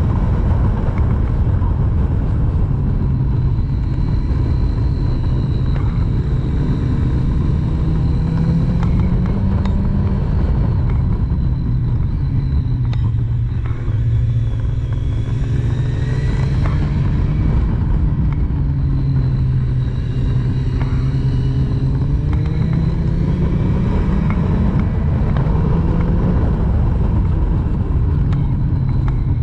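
Triumph Street Triple's three-cylinder engine under way, revs climbing and dropping again and again as the bike accelerates and backs off through the bends, over a steady rush of riding noise.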